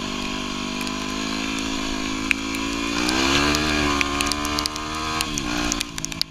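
Yamaha WR250R's 250 cc single-cylinder four-stroke engine running as the bike rides, its pitch rising about three seconds in as it speeds up, then easing off near the end. Scattered sharp ticks sound over it.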